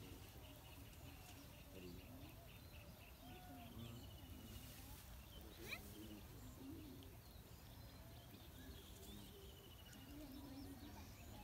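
Near-quiet outdoor ambience of faint bird calls, with one short sharp chirp about halfway through and a rapid ticking trill near the end, over a low steady rumble.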